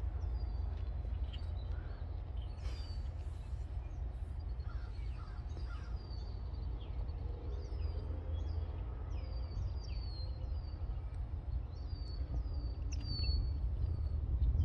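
Birds calling outdoors with many short, high, falling chirps repeated throughout, over a steady low rumble.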